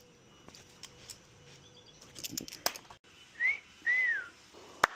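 Two short whistled notes about three and a half seconds in, the second rising then falling, with a few sharp clicks before them and one near the end.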